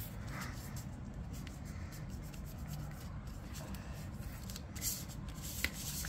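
Sheet of paper rustling and rubbing as it is folded and creased by hand, with a couple of sharper crackles near the end, over steady low room noise.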